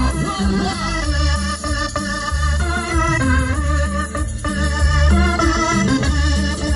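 Electronic keyboard music with no singing: an organ-voiced melody with a wavering vibrato over a bass line that steps from note to note.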